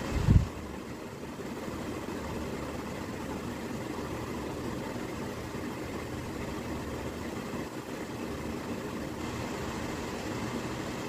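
Steady low background hum, with one dull thump just after the start.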